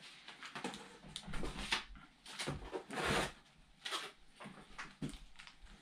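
Cardboard box and packing rustling and scraping as the box is unpacked by hand, in a string of short bursts with the loudest about three seconds in.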